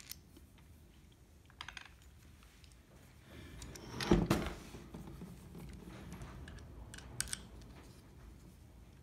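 Small metal parts of a drill-press compound cross-slide table being handled during assembly: scattered light clicks and clatter, with one louder clunk about four seconds in.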